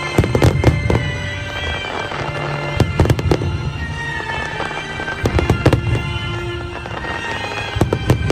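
Fireworks exploding overhead in quick clusters of bangs that come about every two and a half seconds, with music playing underneath.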